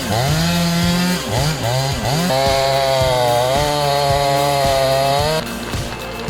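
Chainsaw engine revving in several quick blips, then held at a high, fairly steady pitch for about three seconds before dropping off about five seconds in.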